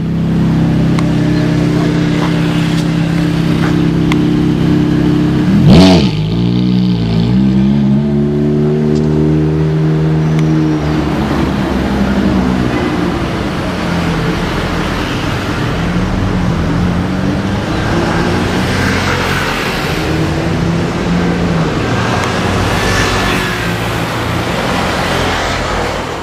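Ferrari F430's V8 idling steadily, then a sharp throttle blip about six seconds in that rises and falls quickly in pitch, the loudest moment. After that the engine note keeps wavering up and down at low revs as the car moves off.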